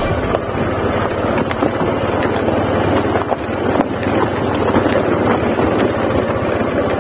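A vehicle engine running steadily while the vehicle moves slowly over a rough, rocky dirt road, with small knocks and rattles from the bumpy ride.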